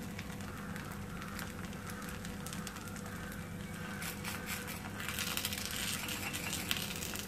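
Adai batter frying with a faint sizzle on a hot griddle while a steel ladle spreads and pats it, giving light scrapes and taps. The sizzle grows louder about five seconds in.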